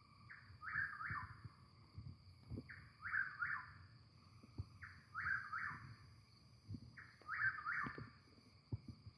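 Chuck-will's-widow singing its 'chuck-will's-WID-ow' song, four phrases about two seconds apart, each a quick run of three whistled notes.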